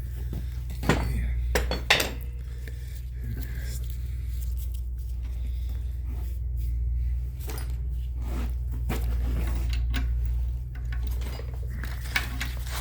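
Hand tools clinking and knocking against the metal of a car's rear brake bracket while it is worked on, a few sharp clinks about a second to two seconds in and scattered ones later, over a steady low hum.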